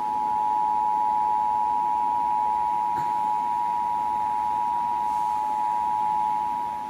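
Emergency Alert System attention signal: the 853 and 960 Hz two-tone sounding together as one steady chord, which marks the start of an emergency alert broadcast.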